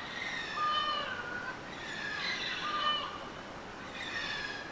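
A run of about five high-pitched bird calls, each with a stepped, falling pitch, over a steady background hiss.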